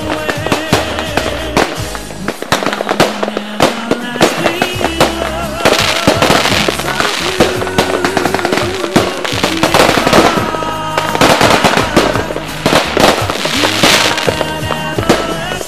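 Fireworks bangs and crackling laid over a song with a singer. The crackling is thickest about six seconds in and again from about ten to fourteen seconds.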